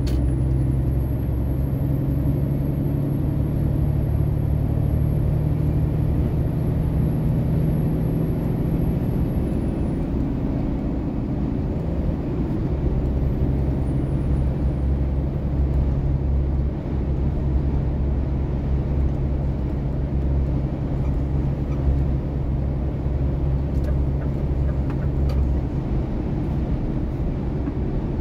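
Steady low engine drone and road rumble inside the cab of a heavy vehicle cruising on a multi-lane highway. A faint high whine holds for about the first ten seconds and returns briefly near the middle.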